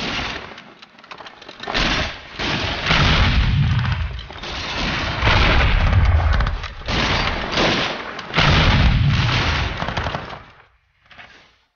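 Rapid gunfire mixed with several heavy explosion booms, as in a staged battle. It fades out suddenly about eleven seconds in.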